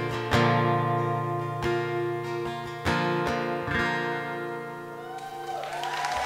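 Acoustic guitar strummed in slow chords, the last chord ringing out and fading, then an audience starting to cheer and applaud near the end.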